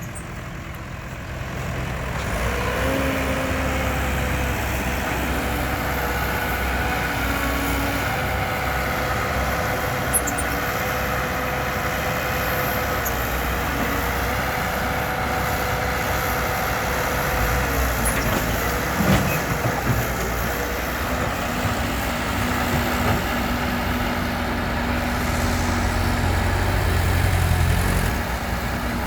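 Diesel engine of heavy earthmoving machinery running steadily, with a few metallic knocks and clanks, the loudest about two-thirds of the way through.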